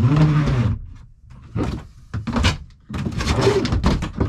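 Knocks, rattles and scrapes of gear being moved about in a boat's cockpit as it is tidied, with a loud scraping sound that rises and falls in pitch in the first second.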